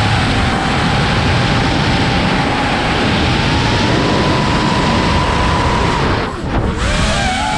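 FPV quadcopter's brushless motors and propellers whining over heavy wind rush. The whine holds at a steady pitch, drops away briefly about six seconds in, then climbs back up.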